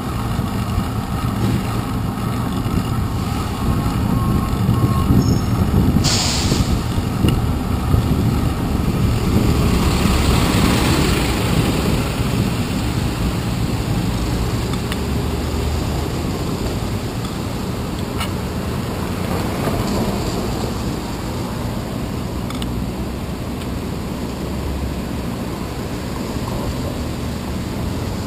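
Steady rumble of city traffic and wind on a bicycle's handlebar-mounted GoPro riding over wet pavement, with a short, sharp air-brake hiss from a truck about six seconds in and a swell of passing traffic a few seconds later.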